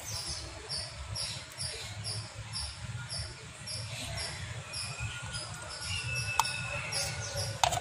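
Faint clinks and scraping of a small plastic spoon against a glass as baking soda is spooned in. Behind it runs a steady high chirping, about three a second, over a low hum.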